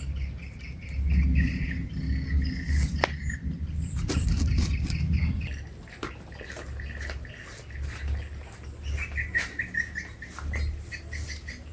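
Small birds chirping in short repeated notes, quickest near the end, over a low rumble that is loudest in the first half and scattered sharp clicks and rustles.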